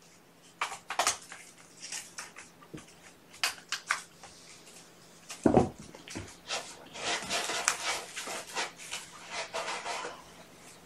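Kittens moving about on a floor: scattered taps and scuffs, then a longer stretch of gritty scratching from about six and a half seconds in, a kitten digging in cat litter.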